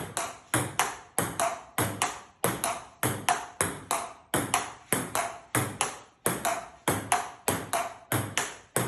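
Table tennis ball clicking against bat and table in a quick, steady rhythm, about four sharp hits a second, with two kinds of knock alternating.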